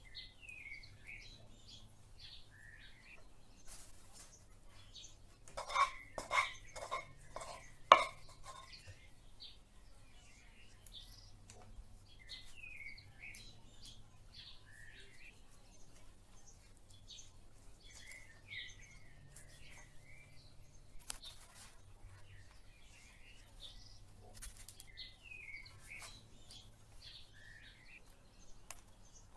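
Birds chirping in the background, short repeated calls throughout. About six seconds in, a table knife clinks sharply about five times in two seconds, the last clink the loudest, with a few fainter taps later on.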